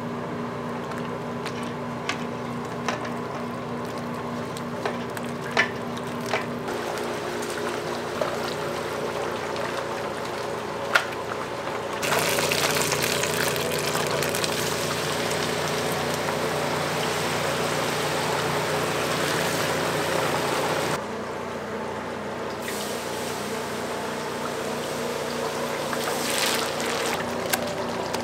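Whole chickens being worked by hand in a steel bowl of flour and wet batter, with wet sloshing and dripping and a few light knocks against the bowl, over the steady hum of commercial kitchen equipment. A louder steady hiss comes in suddenly for about nine seconds in the middle.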